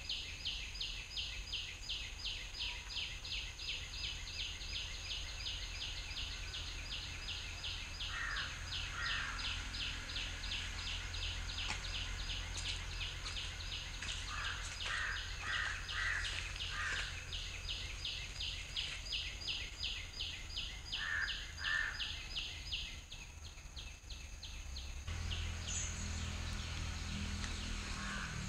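Insect chirping in a fast, even pulse over a steady high whine, stopping about three-quarters of the way through. Short bird calls come several times, and near the end there is rustling and handling noise.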